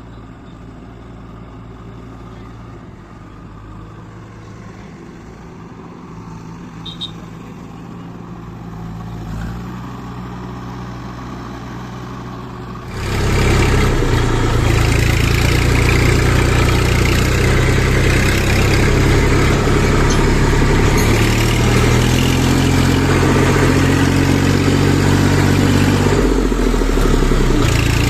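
Diesel engine of heavy farm or construction machinery running steadily, quiet at first and then much louder from about halfway through.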